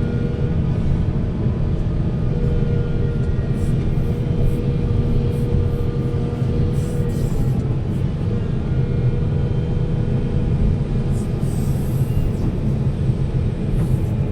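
Heavy diesel machinery engine running steadily, a low continuous rumble with a faint steady hum above it.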